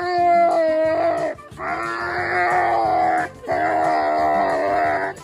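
An animal giving three long wailing cries, each held for one to two seconds with short breaks between.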